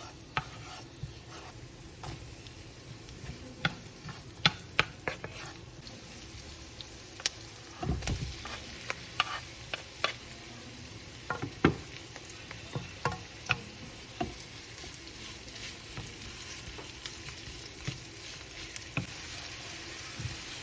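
Mixed vegetables frying in a pan with a steady sizzle, while a utensil stirs them and clicks and scrapes against the pan many times at uneven intervals.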